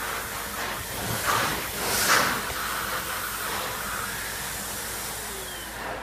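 Numatic Henry 620 W vacuum cleaner running on its high setting, a steady loud rush of suction air as the floor tool is pushed over carpet, with louder surges about a second and two seconds in. Near the end its pitch falls as the motor winds down.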